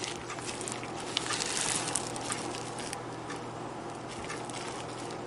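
A spoon stirring thick, crumbly cake batter of cake mix, coconut milk and coconut flakes in a plastic-lined slow cooker: soft scraping and squishing, a little louder about two seconds in.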